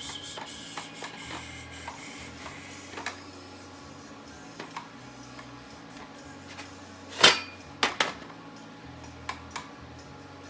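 Welder arc hissing briefly on thin ski steel and dying away in the first second or so, then scattered sharp metal clicks and clanks, the loudest about seven and eight seconds in, over a steady hum.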